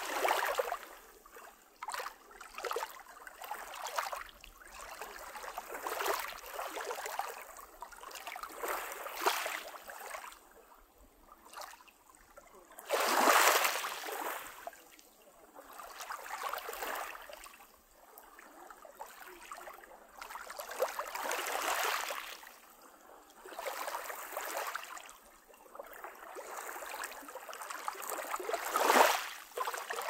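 Small waves of a calm sea lapping and washing over a pebble shore, a soft swish every couple of seconds. A louder wash comes about halfway through and another near the end.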